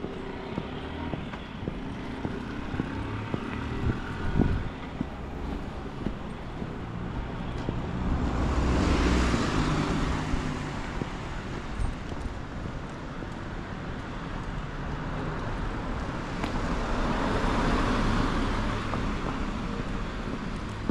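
Street traffic: two cars pass by, one about nine seconds in and another a few seconds before the end, each a swell of engine and tyre noise that rises and fades.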